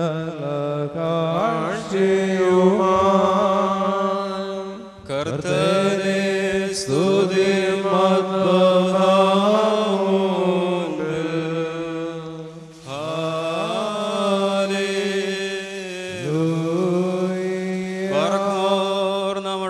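Liturgical chanting: voices sing a long, wavering melismatic line in phrases, with short breaths about five seconds in, near thirteen seconds and at about sixteen seconds. It is the chant sung between the Epistle and the Gospel reading.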